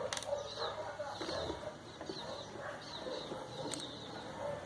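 Birds calling in the background: short chirps repeating several times a second over a lower, wavering call. A couple of light clicks come at the start and near the end.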